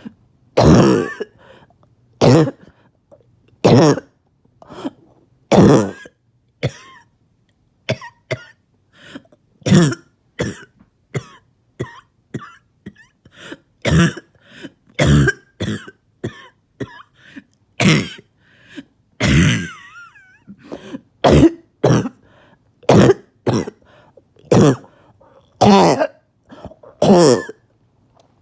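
A person's harsh, barking cough coming in repeated fits: a loud cough every second or two with smaller coughs and catches between.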